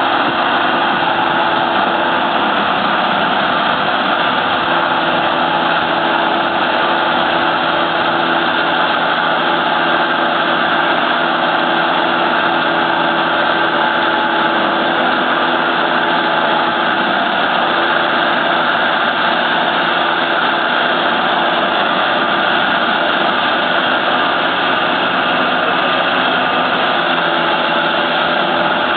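Maize silage harvester running steadily, its engine and cutting machinery making a loud, even mechanical drone with a constant hum that does not change in pitch.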